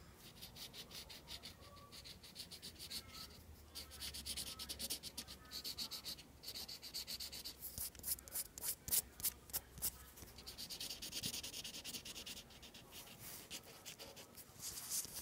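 Blue felt-tip marker scribbling back and forth on paper: faint, quick scratchy strokes that come in spells with short pauses.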